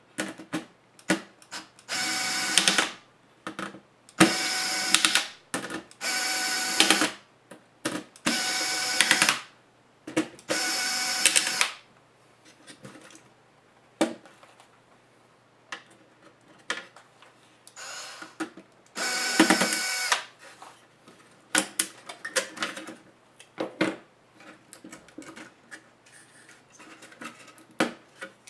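Cordless electric screwdriver running in short bursts of about a second each, five in quick succession and then two more after a pause, backing out the small screws of a laptop's heatsink. Light clicks and taps of metal and plastic parts being handled come in between.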